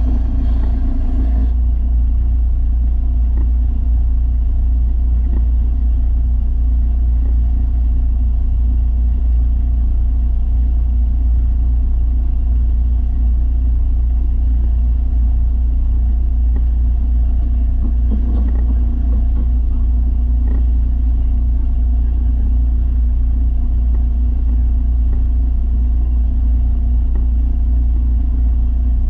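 Belt sander running steadily with a loud low hum.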